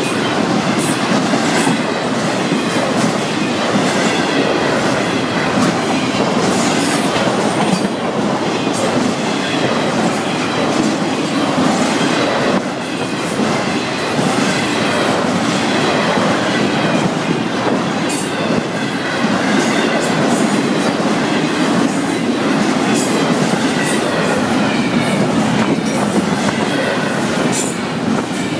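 Freight cars of a long intermodal train rolling past close by: a steady rumble of steel wheels on rail, with rapid clickety-clack over the rail joints and faint wavering high-pitched wheel squeals.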